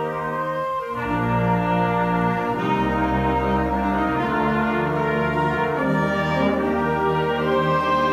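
Eighth-grade concert band playing sustained, brass-heavy chords, with low brass notes coming in about a second in and the harmony shifting a couple of times.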